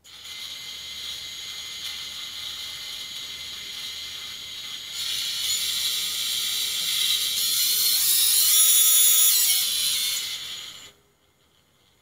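Brushless motor of a Newbeedrone Vivid FPV quadcopter spinning with no propeller on a motor test: a steady whine that gets louder and brighter about halfway through, then cuts off about a second before the end. Its bearings sound a little crunchy, a roughness the owner takes as a possible sign the motor is wearing out.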